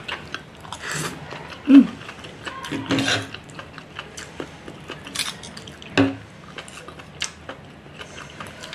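A metal fork and knife clink and scrape against a black metal baking tray while cutting up a fried egg and enoki mushroom omelette. There are a handful of separate clinks and scrapes, and the loudest, a little under two seconds in, rings briefly.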